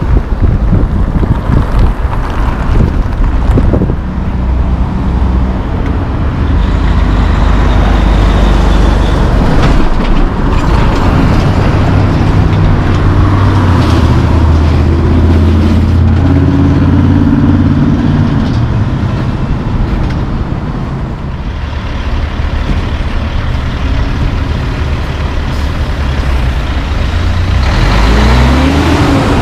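Road traffic with a diesel tractor-trailer hauling two dry bulk tanker trailers driving through. Its engine is loud and rises in pitch as it pulls away, among passing cars.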